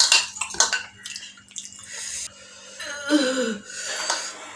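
A person eating chilli-hot food: short clicks and mouth noises with breathy hissing, and a brief moan that falls in pitch about three seconds in.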